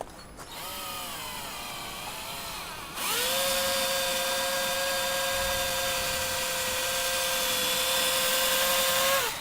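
Electric drill boring a hole in a wall for a wall plug. For the first couple of seconds the motor runs quietly at an uneven speed. At about three seconds it speeds up to a loud, steady whine, holds for about six seconds, and stops just before the end.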